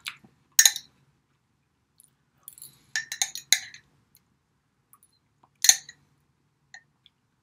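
Metal fork clinking and scraping against the inside of a glass salsa jar. There is a single sharp clink just after the start, a quick run of clinks about three seconds in, and one more clink near the end.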